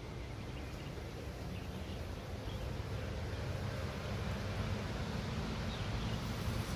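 Wind on the microphone: a low, even rumble that slowly grows louder, over outdoor background hiss.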